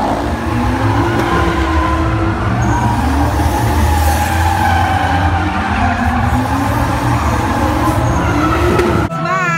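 Stunt cars drifting, their engines revving up and down with tyres skidding and squealing, over a heavy steady rumble; motorcycle engines join in. Just before the end it cuts to music.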